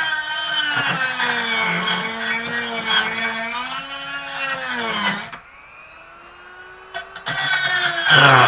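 High-speed rotary tool with a small carbide burr grinding metal in an engine port. Its whine wavers in pitch as the load changes, falls to a faint steady tone about five seconds in, and comes back at full whine near the end.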